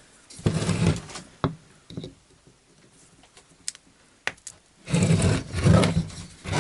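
Hand-tool handling on a screw set in a piece of wood: scraping and rubbing with a few sharp clicks, then a longer, louder stretch of scraping and creaking near the end as the screw-extraction pliers grip and twist it.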